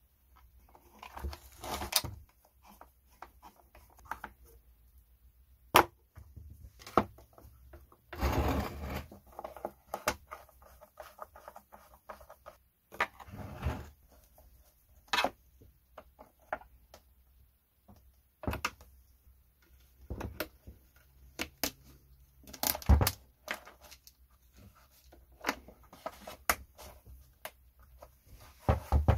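Hard plastic chainsaw housing parts and a screwdriver being handled on a workbench: irregular clicks, taps and knocks, with a longer scraping rustle about eight seconds in.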